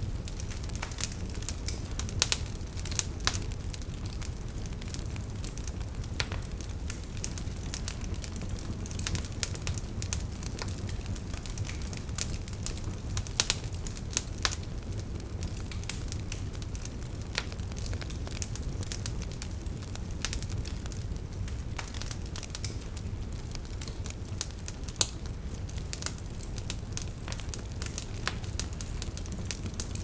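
Wood fire crackling: irregular sharp pops and snaps from the burning logs over a steady low rumble.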